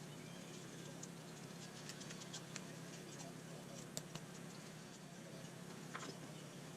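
Faint scattered clicks and light scratching of hands working a small wooden band saw box, over a steady low hum.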